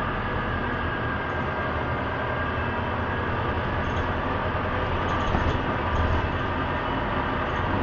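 Cabin of a 1999 Orion V transit bus under way: the steady low drone of the engine and drivetrain mixed with road noise, holding an even level throughout.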